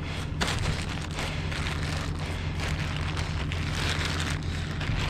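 Tractor engine idling steadily behind a round baler, a constant low hum, under a rough crackling noise.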